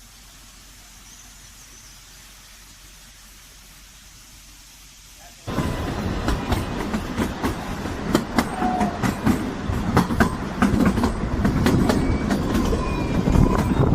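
A faint steady hiss, then about five seconds in the loud sound of a narrow-gauge train running on the track cuts in suddenly: rattling carriages and wheels clattering over the rails, with a thin wheel squeal near the end.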